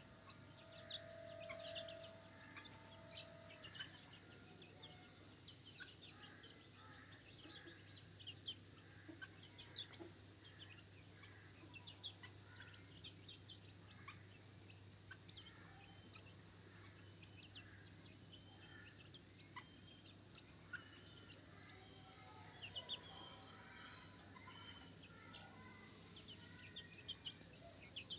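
Young Ayam Cemani chickens clucking and peeping softly as they peck at the litter, with many short faint ticks scattered throughout. A faint steady hum runs underneath.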